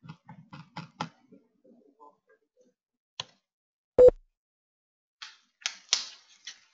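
Computer keyboard keys clicking in irregular runs as a spreadsheet formula is typed, with one much louder, sharp knock about four seconds in.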